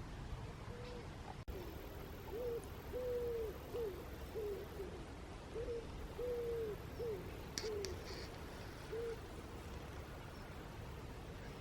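Common wood pigeon cooing: two phrases of soft, low coos, each a short note, a longer stressed note and then a few short notes, with a third phrase starting near the end.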